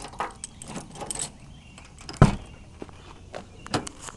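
Car door being unlocked with a key and opened: small clicks and rattles of the key in the lock, a loud clunk a little over two seconds in, and a smaller knock near the end.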